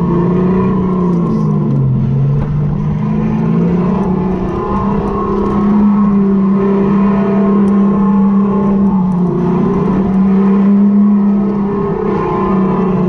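RiMO electric go-kart's motor whining as the kart is driven round the track. Its pitch dips about two seconds in and then climbs again as the kart speeds up, over a rough low rumble.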